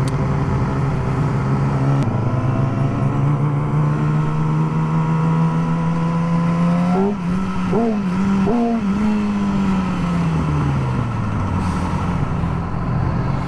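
Motorcycle engine under way, its pitch climbing slowly as the bike accelerates. About seven seconds in come a few quick jumps in revs, then the revs fall away as the bike slows and settles to a lower steady note.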